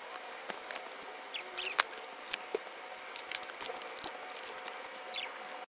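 Cardboard box being opened by hand: light scratches, rustles and clicks of the cardboard flaps and lid, with a few short squeaky scrapes.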